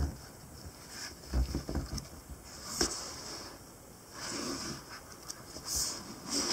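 Pages of a softcover book handled and riffled by hand: a string of short paper rustles and flicks, with one sharp flick about three seconds in.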